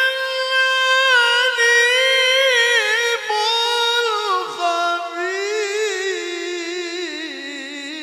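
A man's voice in melodic Quran recitation (mujawwad style), holding one long melismatic phrase with ornamented turns. The pitch drops about four and a half seconds in, and the held note then wavers in a fast trill.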